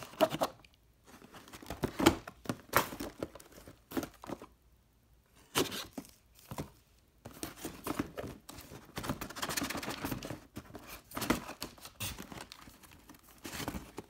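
Cardboard firework packaging being handled and opened by hand: irregular rustling, scraping and crinkling with a few sharp knocks as boxes are moved.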